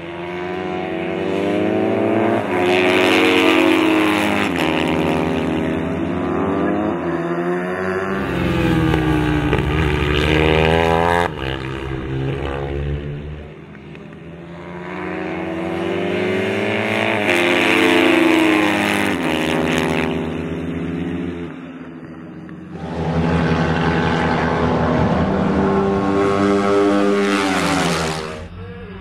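Two Moriwaki MD250H race bikes' 250 cc four-stroke single-cylinder engines at racing speed, pitch climbing and dropping again and again as they shift gears through the corners. The sound swells and fades several times as the bikes pass and draw away, and cuts off sharply near the end.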